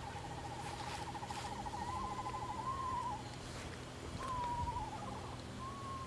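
Eastern screech owl calling: a long, even trill held at one pitch that stops about three seconds in, then a shorter wavering call that slides down in pitch, and a brief call near the end.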